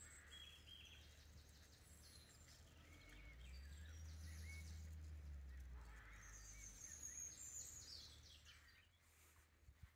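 Faint outdoor birdsong: several small birds chirping and trilling on and off. Underneath is a low rumble that swells in the middle and fades near the end.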